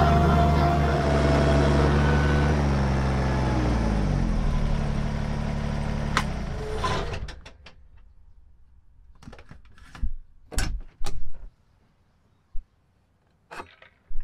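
Kubota BX23S tractor's three-cylinder diesel running, heard from inside the cab, then slowing and falling in pitch before it cuts off about seven seconds in. After that come a few short knocks and clicks of things being handled in the cab.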